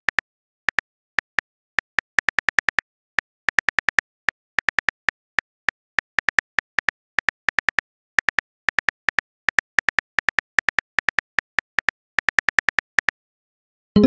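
Smartphone keyboard typing clicks: short light taps in quick irregular runs with brief pauses.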